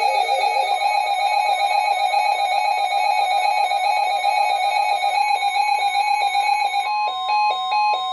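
Electronic alert tones from an emergency weather alert receiver: a fast trilling alarm melody over a steady warning tone that starts about a second in. Near the end it changes to rapid pulsed beeping.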